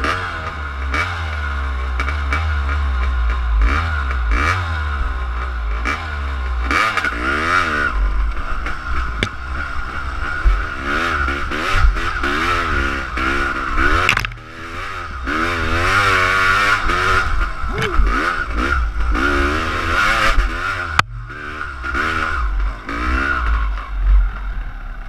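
Dirt bike engine revving up and falling back again and again as it rides a rough trail, with scattered knocks and rattles from the bike over bumps.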